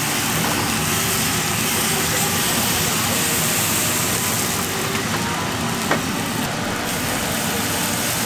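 Steady sizzling hiss of takoyaki batter being poured onto a hot cast-iron takoyaki plate, with a single sharp click about six seconds in.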